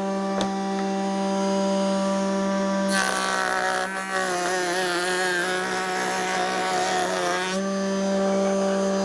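Table-mounted router spinning a lock miter bit with a steady whine. From about three seconds in until past the middle, a board is fed through the bit, adding a cutting rasp while the whine wavers in pitch under the load of the cut.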